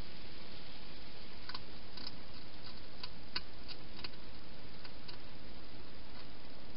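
Wild hedgehog feeding at a bowl inside a plastic feeding station: a run of short, irregular clicks of chewing and mouth on the dish, starting about a second and a half in and stopping about two seconds before the end, over a steady hiss.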